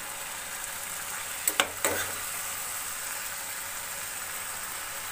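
Chicken curry sizzling steadily in a pan on the stove, with three quick clinks of metal utensils against a steel bowl about a second and a half in.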